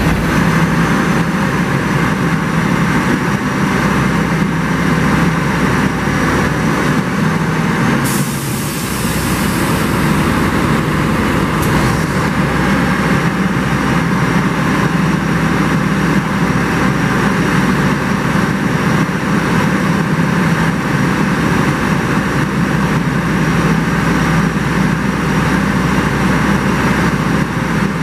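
Heavy diesel engine of a Cometto self-propelled modular transporter running steadily with a low hum. About eight seconds in, a hiss starts and lasts roughly three and a half seconds.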